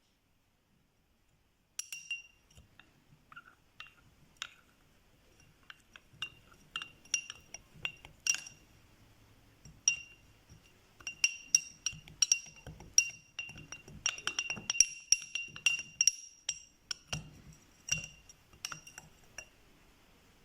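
A spoon clinking against a glass again and again, each strike ringing briefly at the same bright pitch, as when stirring a mixture in a glass. It starts about two seconds in and grows quicker and denser in the later part.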